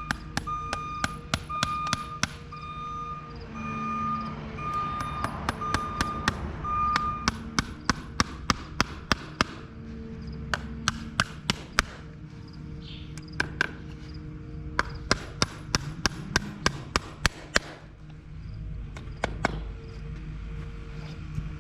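Quick runs of sharp taps like hammer strokes, about three a second, over a steady low hum. A reversing beeper sounds during the first several seconds.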